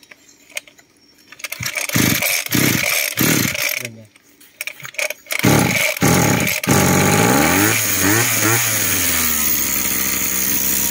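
Small brush cutter engine pull-started: several short pulls on the recoil starter, then it catches about two-thirds of the way through, revs up and down briefly, and settles into a steady idle.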